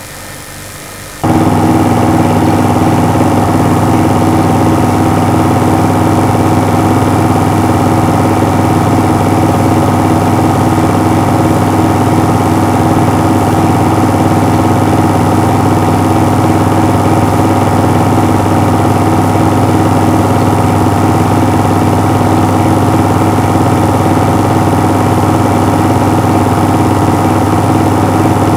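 Steady mechanical hum of a running film projector, with a fast, even flutter, starting abruptly about a second in and holding constant.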